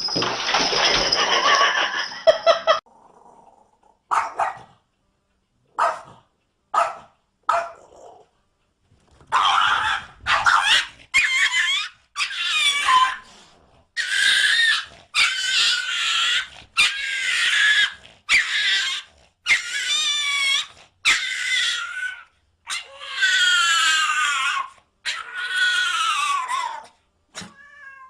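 A dog vocalizing: a loud rough noise for about three seconds, then a long series of short pitched whines and yelps, about one a second, many bending up and down in pitch.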